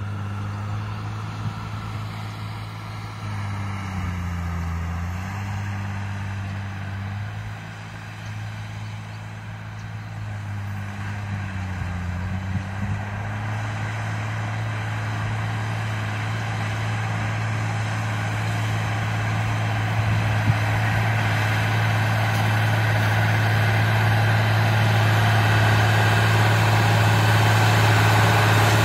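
John Deere 3350 tractor's diesel engine working steadily as it pulls a disc harrow through the soil, growing louder as it approaches. The engine note dips briefly twice, about four seconds and twelve seconds in.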